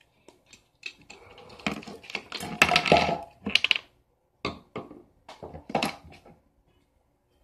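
A run of knocks and clatters from things being handled on a tabletop, densest and loudest a couple of seconds in, with a few more single knocks afterwards.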